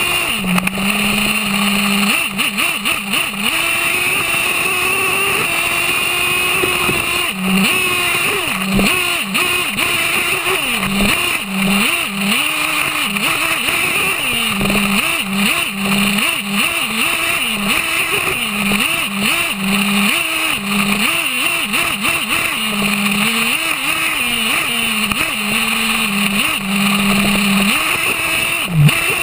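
HPI Savage X 4.6 nitro RC truck's small two-stroke glow engine running at high revs, heard close up from the truck itself. The throttle opens and eases off again and again, so the pitch keeps dipping and climbing back about once a second, mostly in the second half.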